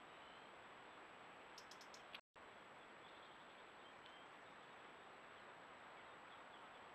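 Near silence: a recorder's even hiss with a faint steady high whine, a few faint ticks about two seconds in, and a brief dropout where the recording cuts.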